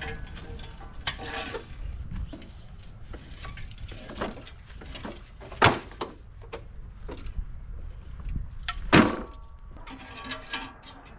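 Irregular metal clanks and knocks from a homemade coal-fired steam boiler and its firebox grate on a lawn mower as it is tilted and worked by hand. Two sharp, loud strikes stand out, about halfway through and again later on. Faint background music runs underneath.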